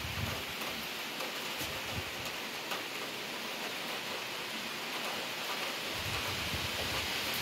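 Heavy rain falling steadily: a dense, even hiss with scattered ticks of single drops. Low gusts of wind start buffeting the microphone about six seconds in.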